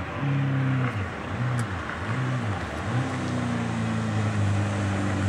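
Suzuki sportbike engine revved in about three quick throttle blips, each rising and falling, then held at a steadier, higher rev.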